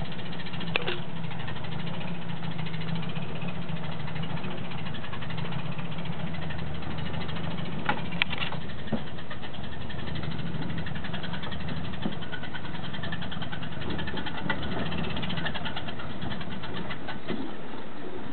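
Jeep 4x4's engine running steadily at low revs as it crawls over a rocky trail in four-wheel-drive low range, with a few sharp clicks, the loudest about eight seconds in.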